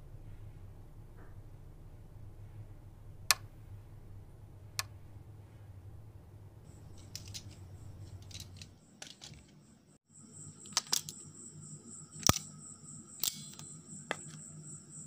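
A few sharp clicks and taps over a low steady hum; about seven seconds in, a steady high-pitched whine joins and runs on, with more clicks near the end.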